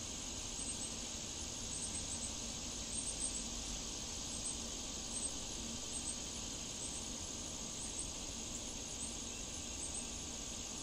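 Steady high-pitched insect chorus, with faint short chirps repeating irregularly above it, over a soft even background hiss.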